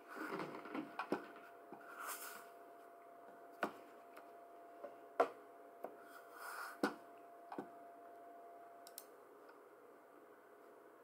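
Scattered single clicks and taps on a computer keyboard, each a second or more apart rather than steady typing, with a few short rustles of movement. A faint steady tone runs underneath and stops about eight seconds in.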